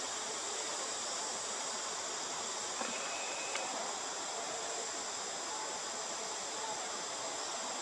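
Forest insects droning steadily in a high-pitched, unbroken hiss.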